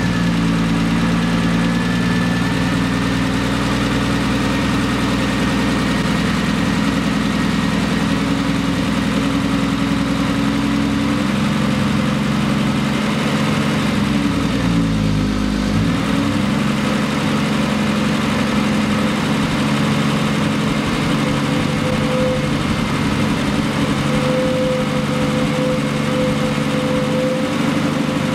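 1973 Triumph TR6's straight-six engine idling fast just after starting, as the distributor is turned by hand to set the ignition timing by vacuum. About halfway through, its speed dips and then climbs back.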